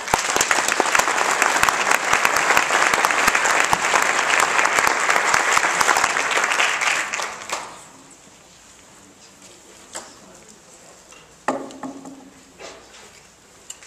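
An audience applauding, the clapping dying away about seven and a half seconds in. A couple of short knocks follow near the end.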